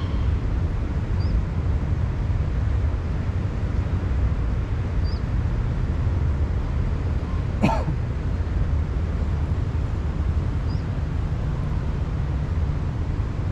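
Steady low outdoor background rumble, with one short sound rising in pitch about halfway through.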